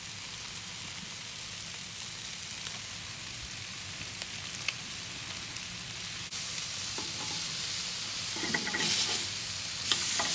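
Marinated barbecue chicken sizzling on the metal grates of a grill, a steady crackling hiss. Near the end, metal tongs clack and scrape against the grate as a piece is turned.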